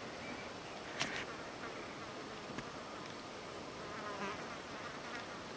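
A flying insect buzzing faintly, wavering in pitch, over a steady outdoor hiss, with a light click about a second in.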